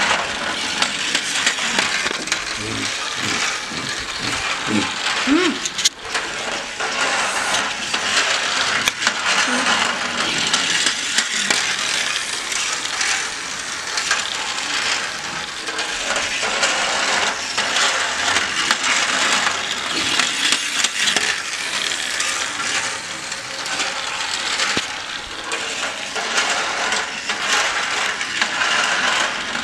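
Battery-powered plastic toy train running on a plastic track: its small geared motor whirs and its wheels rattle and click steadily on the track pieces.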